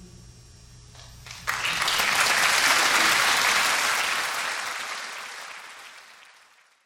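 A choir's last held chord dying away, then audience applause breaking out suddenly about a second and a half in and fading out near the end.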